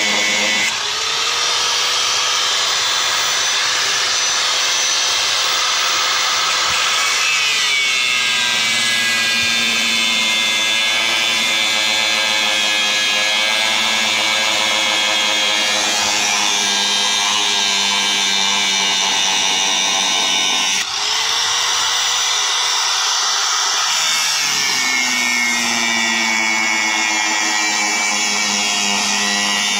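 Angle grinder with a cut-off disc cutting through the rusted metal of a water tank: a steady, loud grinding screech with the motor's whine underneath. Twice, about a second in and again about 21 seconds in, the motor note rises and holds for a few seconds, then sinks back as the disc bears into the metal again.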